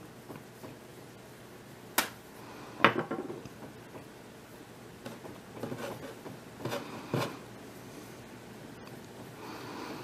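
Quiet handling of yarn and a crochet hook while tying on a new colour, with a few light clicks and taps, the sharpest about two seconds in, as the hook is handled and set down on a wooden tabletop.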